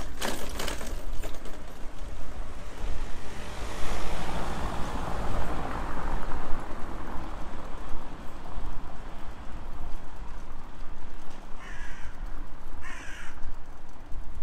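Steady low rumble of a bicycle riding over a brick-paved street, with a broad swell of noise in the middle. Near the end a crow caws twice, about a second apart.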